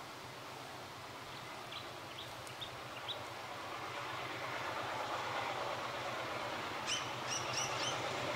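Diesel locomotive approaching along the track, its engine hum growing steadily louder. Birds chirp several times in the first half and again near the end.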